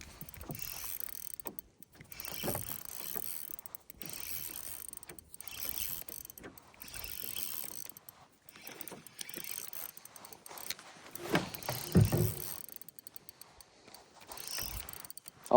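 Fishing reel being cranked in stretches of a second or two with short pauses, bringing in a hooked fish. A few louder knocks come about eleven to twelve seconds in.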